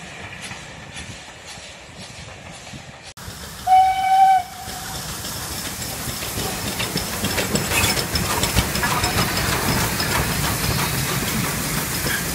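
A receding train rolls away quietly, then a steam locomotive's whistle gives one short, loud blast about four seconds in. LMS 4F 0-6-0 No. 43924 then comes past with its carriages, growing louder.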